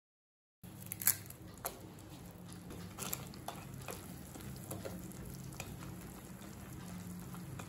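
A wooden spatula stirring instant noodles in a pot of simmering vegetable broth: scattered sharp knocks and scrapes against the pot, the loudest about a second in, over a steady low hum.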